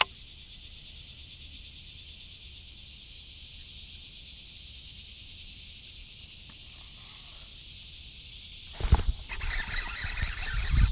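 A steady, high-pitched chorus of summer insects buzzing. About nine seconds in, loud bumps and rustling break in over it.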